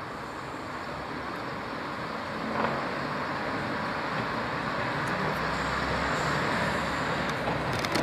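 First-generation diesel multiple unit's underfloor diesel engines working hard as the unit pulls away, getting steadily louder as it comes closer. A few sharp clicks near the end as its wheels run over the points.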